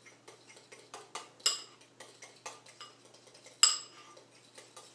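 A utensil stirring a thick, clumpy filling in a small bowl, with irregular scraping taps and two louder ringing clinks against the bowl, about one and a half seconds in and again past three and a half seconds.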